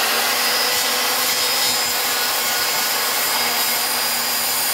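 Corded circular saw running steadily while its blade cuts through a square wooden post, finishing the last part of the cut.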